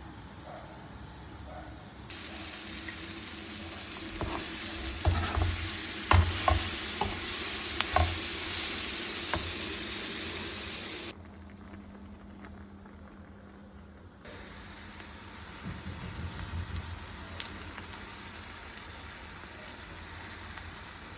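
Food sizzling as it fries in a pan, with a utensil clicking against the pan several times while stirring. The sizzle cuts off suddenly about halfway through and resumes a few seconds later.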